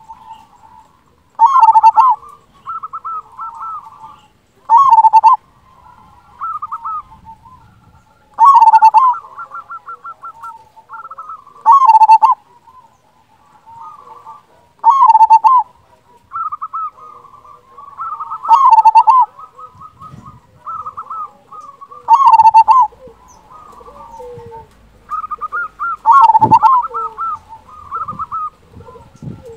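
Zebra dove (perkutut) singing its cooing song about eight times, once every three to four seconds. Each phrase is a loud, full-voiced note followed by a quieter, fast stuttering run of notes.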